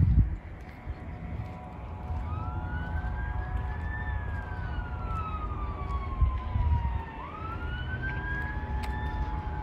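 A siren wailing: its pitch rises and falls slowly, climbing twice and sinking once in between, over a steady low rumble. A low thump sounds right at the start.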